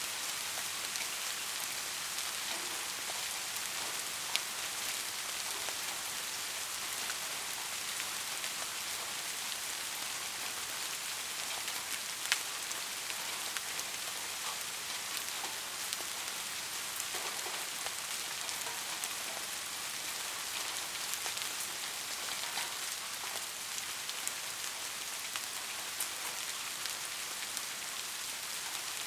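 Steady rain falling, an even hiss with the odd sharper drop hitting close by, twice standing out clearly.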